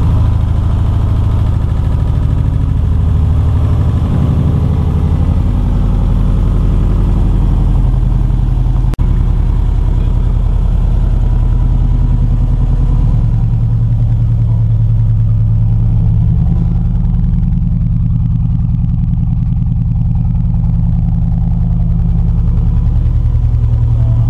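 Subaru GC8's freshly rebuilt flat-four boxer engine running steadily at idle on its first start after the rebuild, with a momentary break in the sound about nine seconds in.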